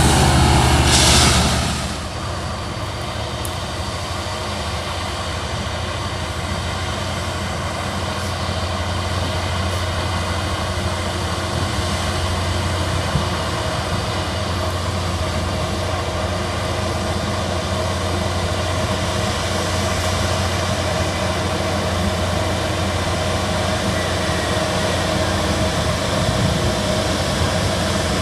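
Diesel engine of a railway track-maintenance machine running steadily, slowly growing louder, with a steady higher whine joining about halfway through. A loud rushing noise cuts off about a second and a half in.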